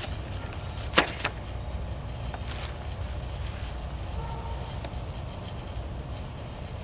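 A metal PTO driveshaft and its universal-joint yoke being handled: one sharp clack about a second in, a lighter one just after, and a couple of faint knocks later, over a steady low rumble.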